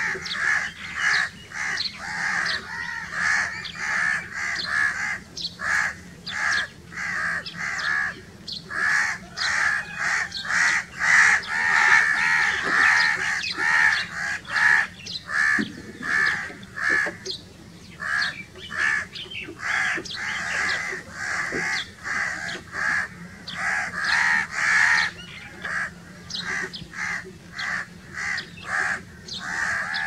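House crow cawing over and over, short calls following one another at roughly one to two a second with hardly a pause.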